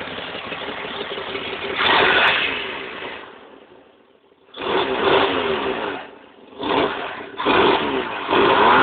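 Holden 202 straight-six with a stage 2 cam and a 350 Holley carburettor, running with an exhaust leak and revved in sharp bursts. It fades almost to nothing about four seconds in, then catches and revs again three more times.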